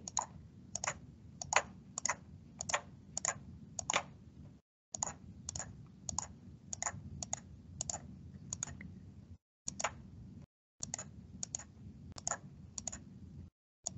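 Computer mouse clicking over and over at an uneven pace, roughly two sharp clicks a second, as rows are selected and added in a program's dialog box.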